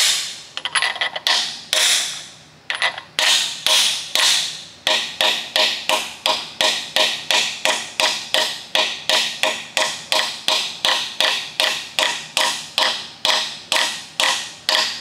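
Hammer striking an impact socket held on a brass core plug, driving the plug into an engine block's core-plug hole. Each blow is a sharp metallic tap with a brief ring. A few spaced blows come first, then a steady run of about two to three taps a second from about five seconds in.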